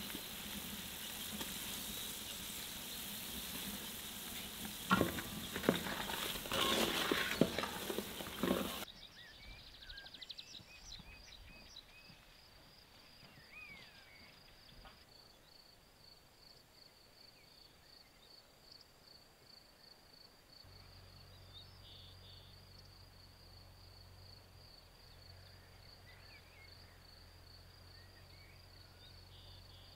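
Liquid heating in a large aluminium basin over a fire, sizzling, with a few knocks and scrapes about five to eight seconds in. It cuts off suddenly at about nine seconds to quiet open-country ambience: a steady high insect trill with a few faint chirps, and a low hum joining about twenty seconds in.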